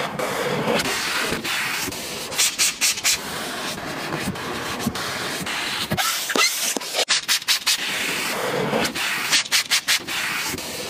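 Cloth and wipe scrubbing over car interior trim (door panels and a padded armrest) in quick back-and-forth strokes, with a short break about six seconds in.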